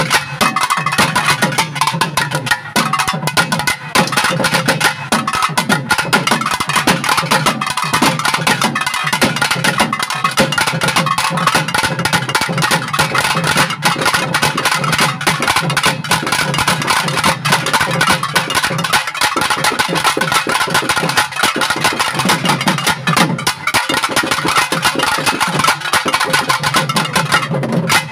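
Naiyandi melam folk ensemble playing: dense, rapid thavil drumming under a sustained nadaswaram melody.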